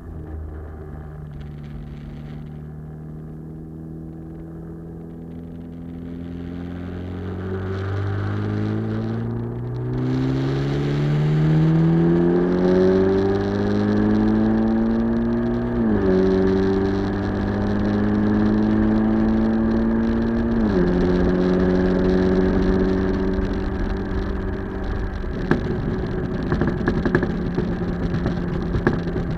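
Mitsubishi Lancer Evo X turbocharged four-cylinder through a 3-inch Scorpion turbo-back exhaust with the catalyst removed, heard at the rear bumper under way. The engine note climbs steadily for about ten seconds, then drops sharply twice, a few seconds apart, as the twin-clutch SST gearbox changes up. It then settles into a steady cruise, with road and wind noise growing near the end.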